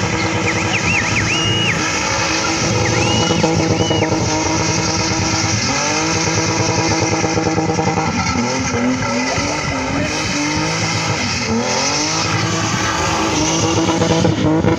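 BMW E36 3 Series engine held at high revs while drifting, the revs dipping and climbing back a few times, with the rear tyres squealing against the tarmac; short wavering squeals stand out in the first few seconds.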